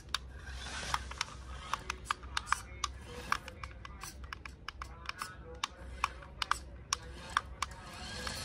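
Remote-control model tractor driving over clods of earth: irregular sharp clicks and ticks, several a second, over a low hum.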